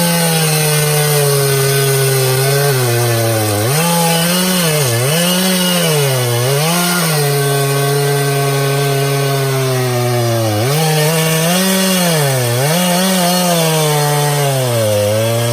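Stihl MS391 two-stroke chainsaw cutting into a large hickory trunk at full throttle. Its pitch sags and recovers several times as the chain loads up in the wood.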